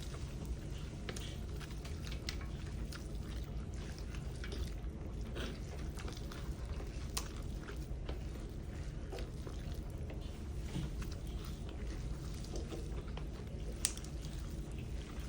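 People eating chicken curry noodles and soup: quiet chewing and slurping with many small scattered clicks, over a steady low hum. One sharper click comes near the end.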